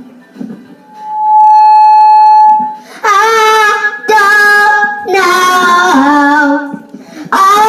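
A child's voice screaming and singing at full volume into a close microphone, loud enough to distort. A long, steady, high tone is held for about a second and a half, then a run of loud, wavering sung notes.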